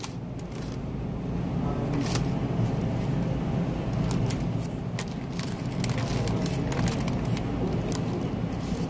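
Steady low background rumble, with scattered sharp clicks and rustles as a black plastic fork digs through chili cheese fries in a paper fry boat lined with wrapping paper.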